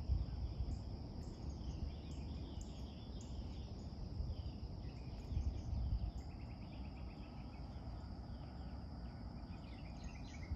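Insects keep up a steady high drone while birds chirp repeatedly throughout, over a low rumble that swells briefly near the start and again about halfway through.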